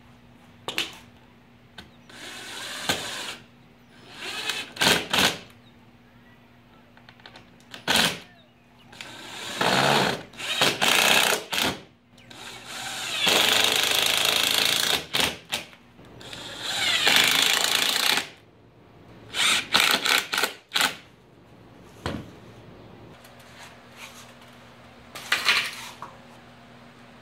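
Cordless drill driving screws into hardwood pallet-wood boards to fasten casters on, in about a dozen separate runs, the longest nearly two seconds, with quiet gaps between.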